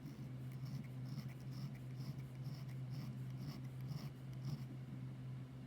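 Soldered edge of a metal ring being rubbed down a flat hand file in a regular series of short strokes, about two a second, filing the edge flat so it can be soldered to a bezel; the strokes stop near the end. A steady low hum runs underneath.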